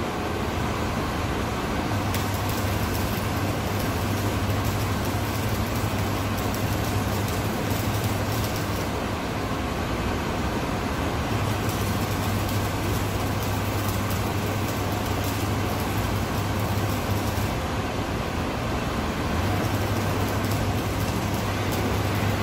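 Arc welding on steel plate: the steady crackle of the arc with the welding machine's low hum. The hum drops out twice for a couple of seconds as the arc is broken, then comes back, over a constant workshop background noise.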